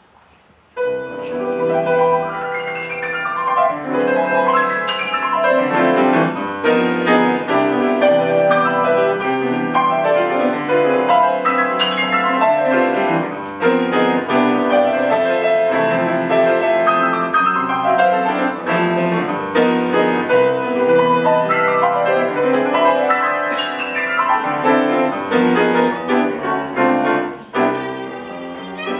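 Grand piano playing a solo introduction to a jazz standard, starting about a second in, with the violin joining near the end.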